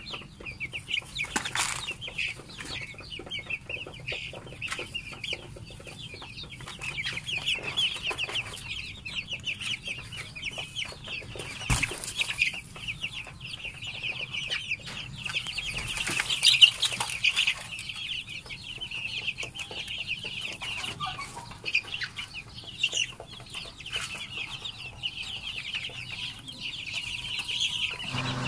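A flock of young chicks peeping continuously, many high chirps overlapping, with a few brief knocks now and then.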